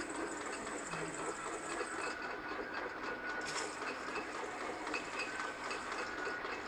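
PALI PEPA 5/5/1 automatic beer bottling triblock (rinser, filler, capper) running: a steady mechanical clatter from the bottle conveyor and infeed screw. A thin hiss runs through the first two seconds, and a short burst of hiss comes about three and a half seconds in.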